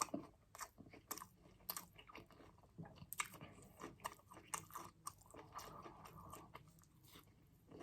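Faint, close-miked chewing of food: irregular soft mouth clicks, several a second, with no words.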